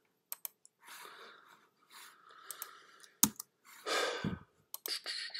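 Computer mouse clicks and keyboard keystrokes: a few quick clicks near the start and a sharp one past the three-second mark. Soft breaths come between them, the loudest about four seconds in.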